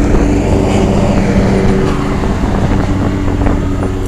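1987 Carrier Round One 3-ton central air-conditioner condensing unit running, its condenser fan and compressor giving a steady hum.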